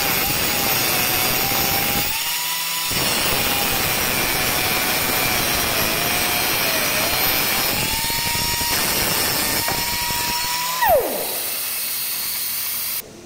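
Pneumatic circular saw cutting a granite slab: a high air-motor whine over the grinding hiss of the blade in the stone, its pitch sagging under load and rising again when the blade runs freer. Near the end there is a brief louder burst and the whine falls steeply away as the saw is shut off and spins down.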